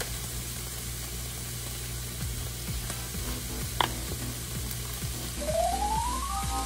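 Chopped onion, bell pepper and garlic sautéing in a little coconut oil in a pot, sizzling steadily, with one sharp click a little under four seconds in.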